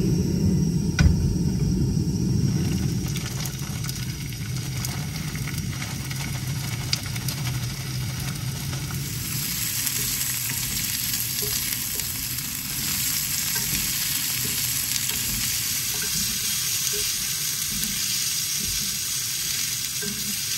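Onions and garlic sizzling and being stirred with a wooden spoon in a small cast-iron skillet on a single-burner propane canister stove. A knock about a second in as the skillet is set on the burner, and the sizzle grows brighter about nine seconds in.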